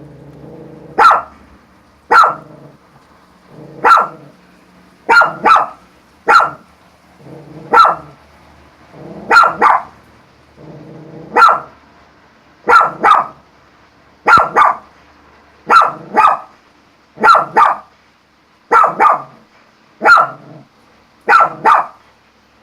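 A dog barks repeatedly, in sharp single or double barks about every one to two seconds, with low growling in between: the reactive barking and growling of a fearful dog.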